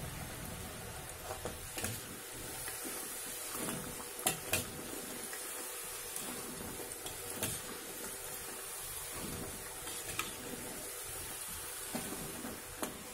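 Rice-flour gavvalu deep-frying in hot oil with a steady sizzle, while a perforated metal skimmer stirs and lifts them, clinking sharply against the steel pan now and then.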